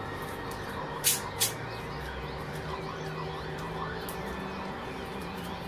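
Steel clock mainspring handled and coiled by hand, with two brief, sharp scraping sounds about a second in and small metallic clicks, over a steady background rumble.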